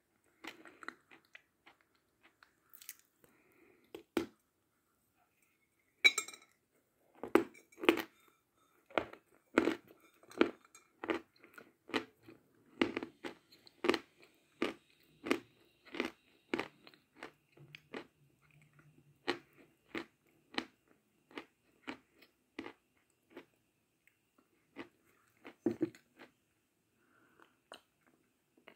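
Chalk being bitten and chewed close to the microphone. A sharp crunch comes about six seconds in, then steady crunching chews at about one and a half a second, thinning out near the end.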